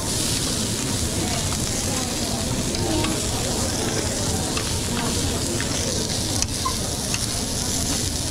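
Food sizzling in a hot pan, a steady hiss, with a few light clicks from utensils.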